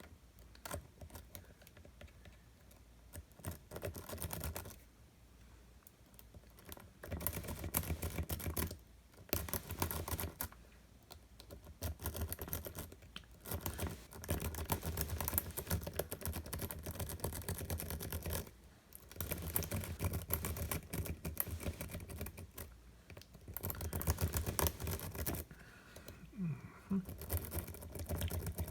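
Sparrows worm rake being scrubbed in and out of an Illinois Duo padlock's worn pin-tumbler core under a tension wrench: rapid metallic clicking of the pins. It comes in bouts of a few seconds with short pauses between.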